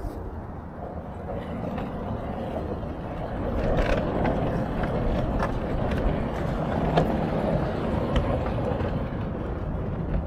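Sliding gate being pushed closed, its rollers rumbling along an angle-iron track, with a few light knocks. The rumble grows louder about a third of the way in and stays up until near the end.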